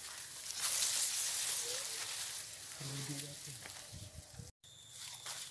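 Tall grass and reed leaves rustling and crackling as someone pushes through them, loudest about a second in. After a sudden cut near the end, a steady high-pitched insect drone takes over.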